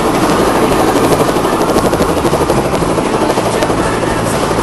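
Helicopter running on the ground close by, its main rotor turning. A loud, steady engine and rotor noise with a rapid pulsing.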